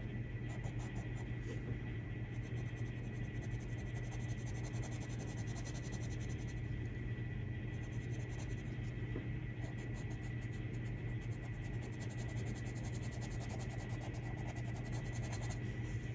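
Coloured pencil scratching on paper in many short strokes, over a steady low hum.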